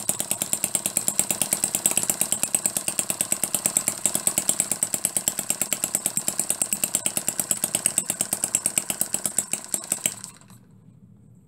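Scratch-built miniature four-stroke, spark-ignition flathead engine (1/2-inch bore and stroke) running with rapid, even firing pulses. It stops abruptly about ten seconds in.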